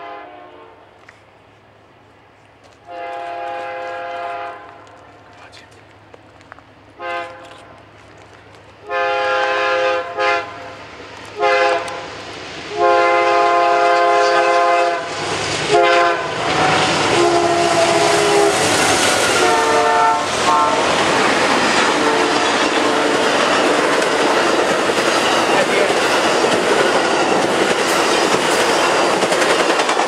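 Amtrak passenger train led by GE Genesis P42DC diesel locomotives, sounding its multi-tone air horn in a series of long and short blasts as it approaches. About halfway through the train reaches the spot and passes at speed: the horn sounds lower as the locomotives go by, then a steady, loud rush of wheels on rail with clickety-clack from the passing coaches.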